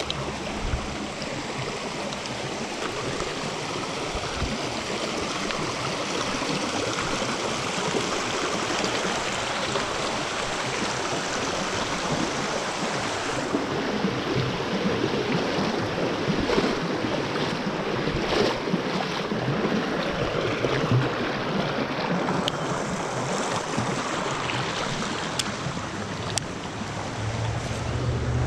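Shallow creek water rushing and rippling over rocks, a steady rush, with a few short sharp ticks in the second half.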